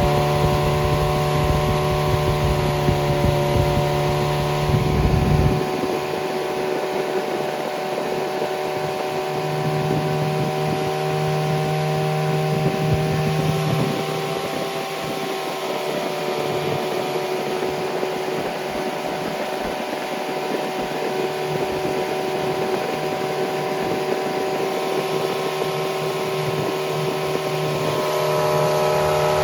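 Freshly rebuilt Triumph Spitfire 1500 inline-four engine running, its speed easing down over the first couple of seconds and its note dropping about five seconds in, then running steadily at a lower speed with a slight rise near the end.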